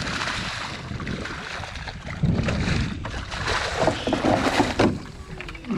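Hooked redfish (red drum) thrashing and splashing at the water's surface, then flopping in a landing net as it is scooped up. The splashing comes in irregular bursts, loudest in the second half.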